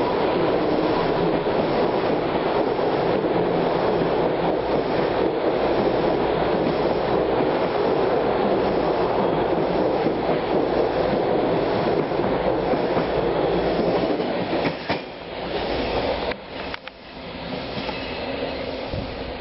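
Hawker-Siddeley H5 subway train running along the platform, a steady loud rumble with wheel clatter for about fourteen seconds, then fading. After an abrupt break near the end, a quieter rumble from a train approaching at a distance.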